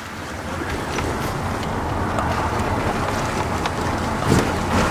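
Car driving slowly, heard from inside the cabin: a steady low engine and tyre rumble that grows a little about a second in, with small knocks and rattles and a louder thump near the end.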